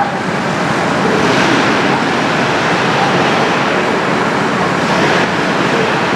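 Go-kart engines running on an indoor kart track: a steady engine drone whose pitch rises and falls as the karts accelerate and pass.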